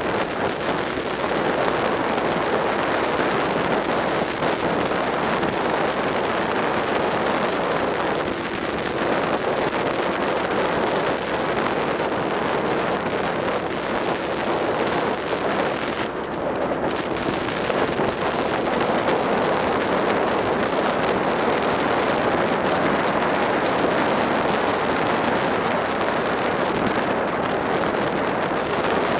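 Steady wind rush over the microphone of a Suzuki SV650 motorcycle cruising at speed, with the 645 cc V-twin's running and road noise mixed in beneath.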